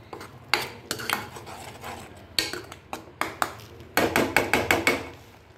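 Metal spoon stirring thick tomato masala in a metal kadai, scraping and clinking against the pan. A quick run of clinks comes between about four and five seconds in.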